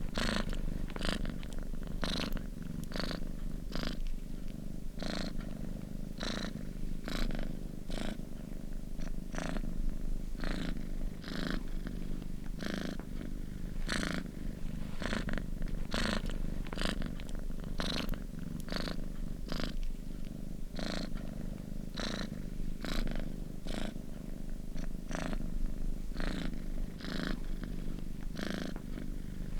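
Domestic cat purring steadily, close up, in an even rhythm of about two pulses a second.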